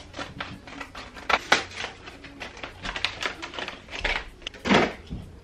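Scissors snipping and a cardboard-and-plastic package being torn open by hand: a dense run of quick clicks and crinkles, with louder rips about a second and a half in and again near the end.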